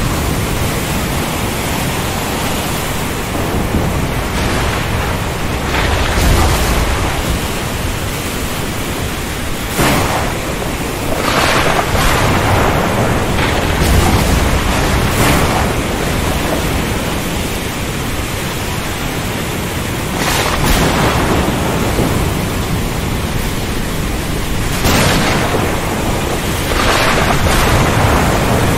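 Thunderstorm over the sea: a steady hiss of heavy rain with sharp thunder cracks every few seconds and low rumbles, loudest about halfway through.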